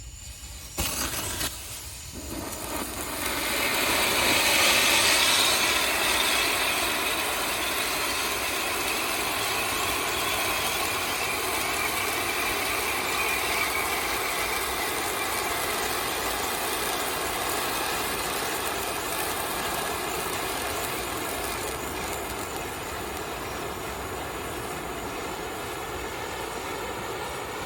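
Handheld firework wheel (pinwheel) burning. A brief sharp sound about a second in, then a steady loud hiss of spraying sparks that builds over a few seconds and slowly eases off.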